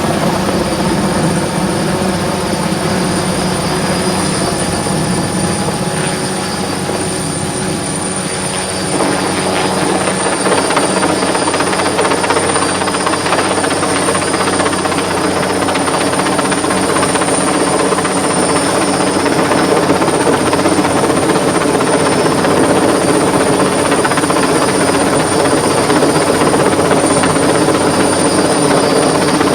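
Helicopter running close by, a steady rotor and engine noise that grows louder about nine seconds in.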